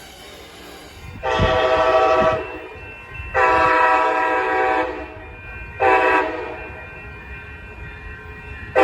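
Nathan K5LA five-chime air horn on a Coaster Siemens Charger SC-44 locomotive sounding the grade-crossing signal: a long blast about a second in, a second long blast, a short blast, and the final long blast beginning at the very end. Each blast is a steady multi-note chord over the quieter rumble of the passing train.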